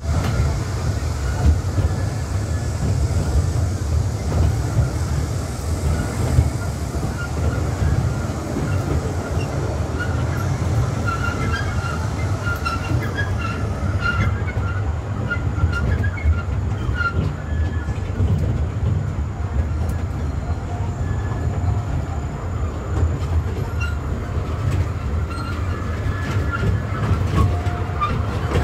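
Small tourist ride train running along its track: a steady low rumble, with short light squeaks from the wheels, mostly around the middle.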